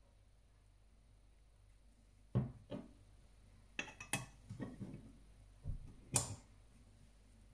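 A string of knocks and clunks from a metal espresso portafilter being handled and set down on a wooden desk, starting about two seconds in after a quiet stretch, with the sharpest knocks near two and a half and six seconds in.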